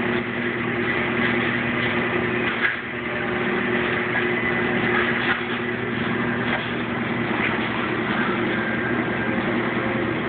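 Commercial pizza dough roller (sheeter) running with a steady electric motor hum as dough is fed through its rollers, with a few light knocks from handling.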